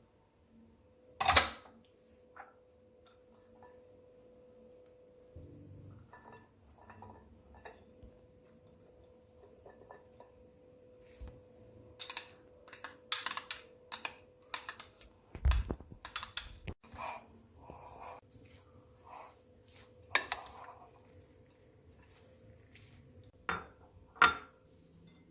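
Cutlery and utensils clinking and knocking against dishes in scattered sharp taps, with a loud knock near the start and a busy run of clinks around the middle. A faint steady hum runs underneath.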